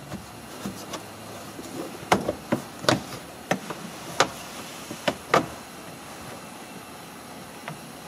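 Plastic pillar trim panel being pulled loose by hand, its retaining clips and plastic snapping and clicking about eight times, mostly in the middle.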